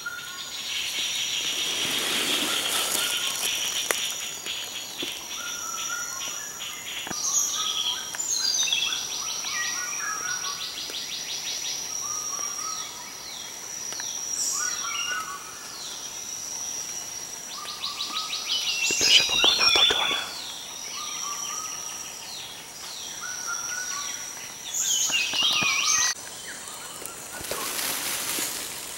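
Tropical forest ambience: a steady high insect drone under many short bird chirps and calls, with a buzzing trill early on and a brief louder noisy burst about two-thirds through.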